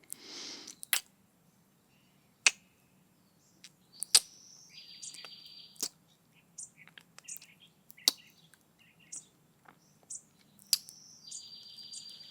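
Birds chirping with a repeating buzzy trill, and sharp close-miked kissing smacks every one to two seconds after a breath at the start.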